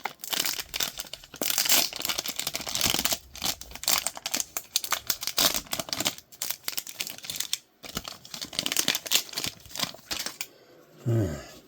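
Plastic trading-card pack wrapper crinkling and tearing as it is ripped open by hand, in quick irregular crackles. Near the end, a brief low sound slides down in pitch.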